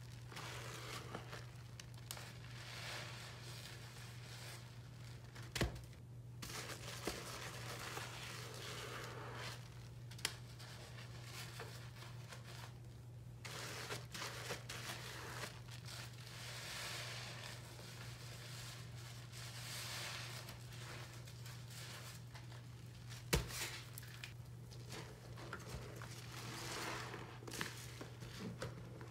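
Wet sponge scrubbing a sink basin and being squeezed in soapy lather: scratchy, crackly rubbing in uneven strokes. There are two sharp knocks, about six seconds in and again near the end, over a steady low hum.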